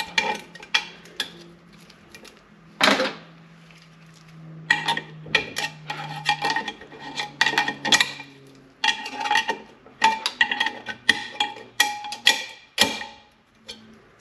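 Steel snap ring being worked into its groove in an aluminium 47RE/48RE overdrive extension housing: clusters of metallic clicks and scrapes, with the ring giving short ringing tones after the taps.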